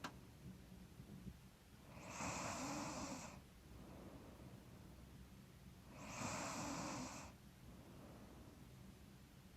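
A sleeping woman breathing slowly and heavily through a stuffy nose into a close microphone, with a light snore: two long breaths about four seconds apart.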